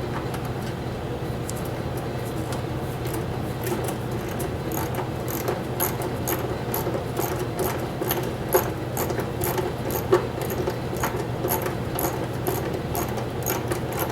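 Hand ratchet clicking in quick runs as a 10 mm bolt on an ATV's chain guard is worked loose, the ticks coming thicker from about four seconds in, over a steady low hum.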